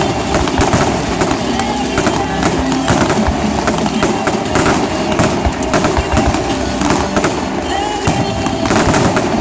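Fireworks display: a dense, continuous run of bangs and crackles, with voices underneath.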